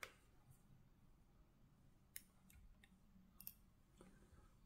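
Near silence broken by small clicks and taps of fly-tying tools at the vise while a hackle is wound with hackle pliers: one sharp click at the start, then a few faint ones between about two and three and a half seconds in.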